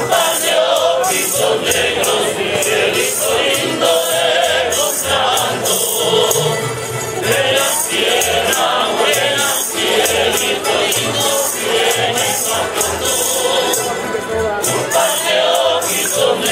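Music: several voices singing together over a steady shaken tambourine rhythm.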